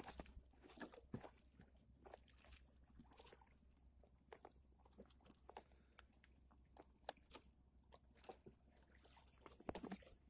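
Near silence with faint, scattered clicks and rustles.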